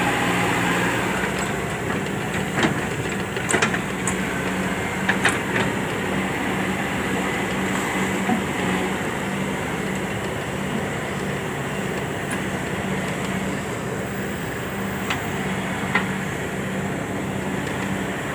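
Excavator's diesel engine running steadily, a low even hum, with a few short sharp knocks scattered through.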